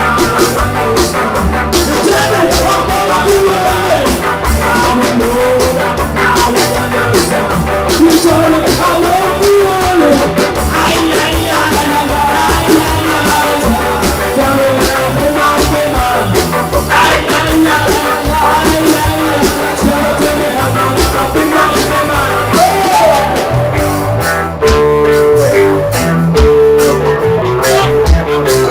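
A ska band playing live with a singer, drums and guitar. About twenty-four seconds in, the singing stops and the band carries on with a repeating instrumental riff.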